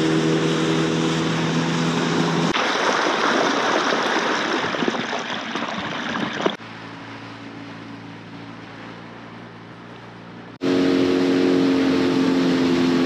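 Dinghy outboard motor running steadily with a hum of several tones. About two and a half seconds in it cuts abruptly to a rushing of water and wind, and about six and a half seconds in it drops to a much quieter stretch. About ten and a half seconds in the loud motor hum cuts back in.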